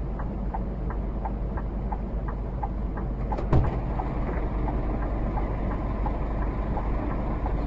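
Steady low rumble of a car heard from inside, with a light tick repeating about three times a second and a single knock about three and a half seconds in.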